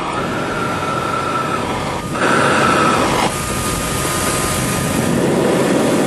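A hairdryer running with a steady whine, which the owner takes for worn bearings. About two seconds in, a louder rushing hiss starts as the propane foundry burner is lit, and the burner then keeps burning with a steady rush.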